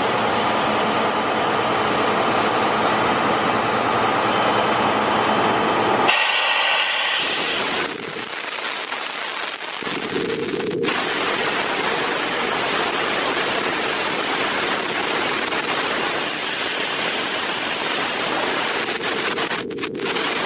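Ingersoll Rand 12/235 portable air compressor running on its Cummins QSL-9 diesel engine, with a loud, steady rush of air as it discharges compressed air. About six seconds in the deep engine sound drops away while the rush of air carries on, and about four seconds later it comes back.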